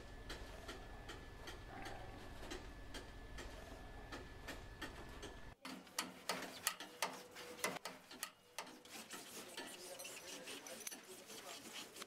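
Rebar tie wire being twisted and snipped with pliers at the crossings of a steel mesh: a run of sharp metallic clicks and snaps, loudest about six to eight seconds in. Before that, a low steady hum with light regular ticking.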